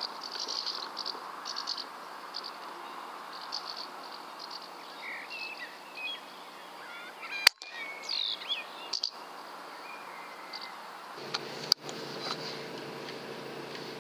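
Two sharp cracks of a Weihrauch HW100 PCP air rifle firing, the louder about halfway through and another near the end, with small birds chirping and twittering and a steady outdoor hiss.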